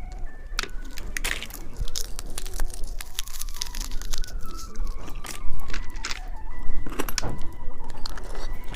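Irregular crackling, clicking and crunching of candy and its packaging, handled and eaten close to the microphone.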